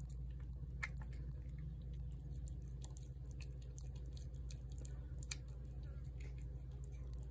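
A cat chewing wet food from a plate, with many small irregular clicks and smacks of its mouth. A steady low hum runs underneath.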